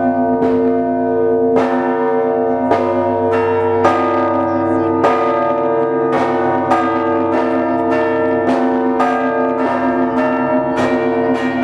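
Russian Orthodox church bells of the Trinity Lavra of St. Sergius ringing for the evening service. Several bells of different pitches are struck in quick succession, two or three strikes a second, over the long hum of the larger bells. The strikes come thicker near the end.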